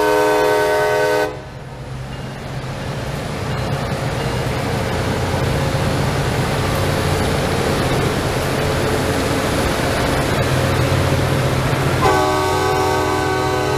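A multi-tone train horn sounds for about a second, then breaks off, leaving the steady rumble of diesel engines and rolling cars of a passing Loram rail-grinding train. The horn sounds again near the end.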